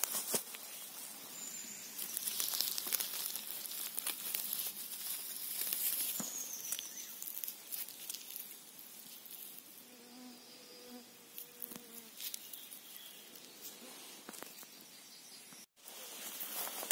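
Rustling of grass and forest litter from walking and handling, with a flying insect buzzing close by for about two seconds past the middle.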